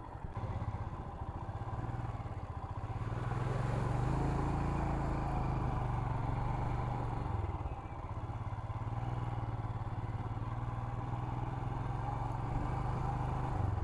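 Royal Enfield Himalayan's single-cylinder engine running as the motorcycle rides a rough dirt track; the engine note rises a little about three seconds in and dips briefly near eight seconds.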